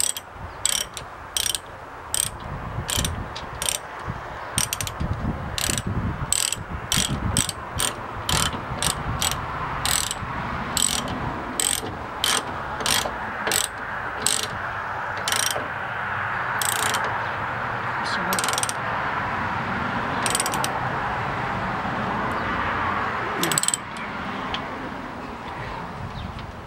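Socket ratchet wrench clicking in irregular runs as a nut on the truck's frame crossmember is turned, with short pauses between strokes. The clicking stops a few seconds before the end.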